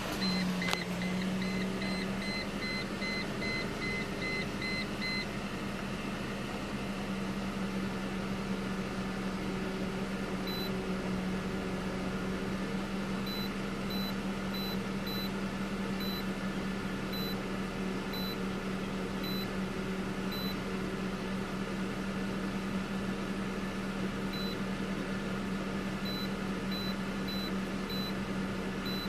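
2003 Mercedes-Benz C230 Kompressor's supercharged four-cylinder engine idling steadily with a steady hum, just after being started. A quick run of short electronic beeps sounds over the first five seconds or so, then single beeps come off and on.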